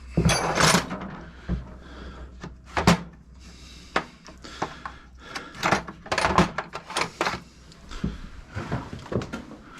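Irregular clicks, clanks and knocks of hand tools and metal parts being handled during motorcycle disassembly at the handlebar controls.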